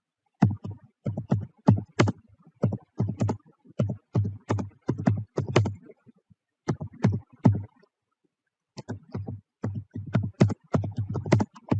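Typing on a keyboard: quick, irregular keystrokes in runs, with two short pauses partway through.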